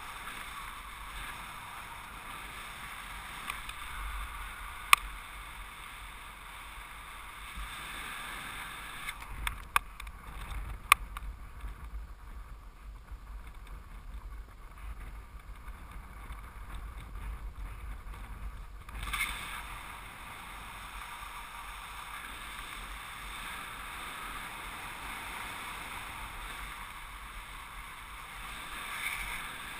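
Steady rush of wind over the camera's microphone as a paraglider flies, with a low rumble underneath. A few sharp clicks cut through it, loudest about five seconds in and around ten to eleven seconds.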